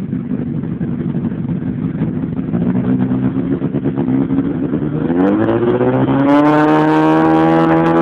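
Honda CBR1000RR inline-four through a stainless-steel Varana Moto aftermarket exhaust, idling and then revving up. The engine climbs steeply about five seconds in and holds at high revs.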